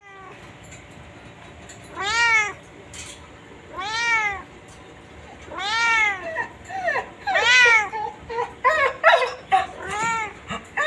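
Domestic cat meowing repeatedly: four drawn-out meows that rise and then fall in pitch, about two seconds apart, followed near the end by a quicker run of shorter meows.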